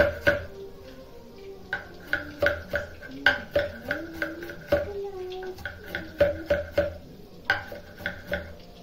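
Kitchen knife chopping onions on a wooden chopping board: sharp knocks of the blade on the board, in quick runs of several strokes with short pauses between.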